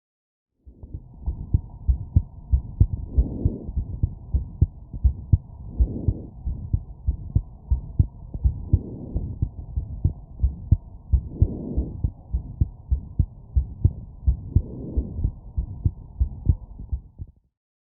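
Heart sounds picked up through a wireless stethoscope: a steady, regular train of heartbeats, presented as an abnormal heart sound. A broader swell comes in roughly every three seconds. The sound starts about a second in and stops just before the end.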